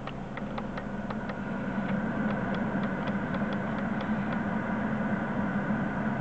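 Quick plastic clicks of a Mercedes-Benz W220's climate-control buttons being pressed, about four a second, stopping a little past four seconds in. Under them is a steady hum that grows louder about two seconds in as the ventilation blower speeds up.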